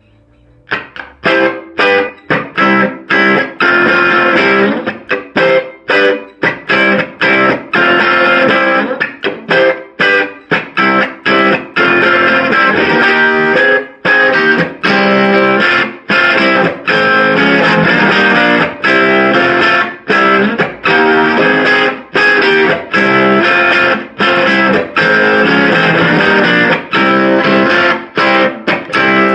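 1963 Hofner Galaxie electric guitar played loud through a 1968 Sound City Concord valve amp, its tone pushed by boost pedals: chords struck over and over in short, choppy stabs with brief gaps, starting about a second in.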